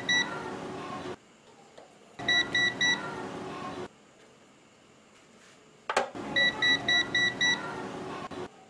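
Short electronic beeps in quick groups: one at the start, three about two and a half seconds in, and about five more from six and a half seconds, each group over a hiss. It is an added "no" warning sound effect. A sharp click comes just before the last group.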